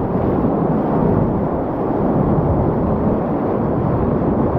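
Whitewater rapid rushing and churning right around a kayak: a loud, steady wash of water, heaviest in the low end.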